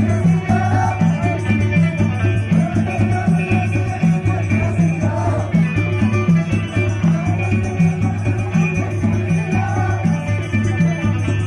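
Live Amazigh folk music from a band, with a steady, repeating beat over a driving bass line and a melody above it.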